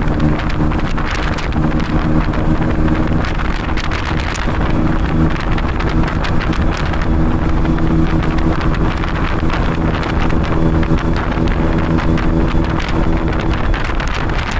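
Tuk-tuk engine running steadily as the three-wheeler drives along, with heavy wind buffeting the microphone.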